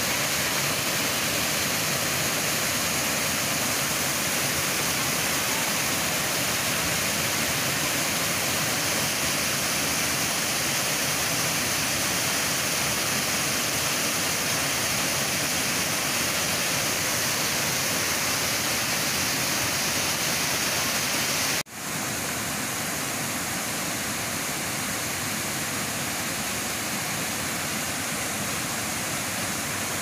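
Small waterfall splashing into its plunge pool: a steady rush of falling water. About two-thirds of the way through it breaks off for an instant and resumes slightly quieter.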